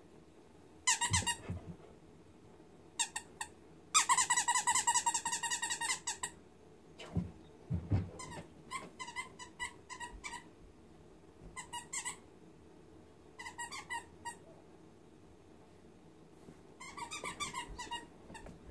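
Squeaky dog toy squeezed in short bursts of rapid squeaks, with a longer, louder run of squeaking about four seconds in. A couple of dull thumps come around seven to eight seconds in.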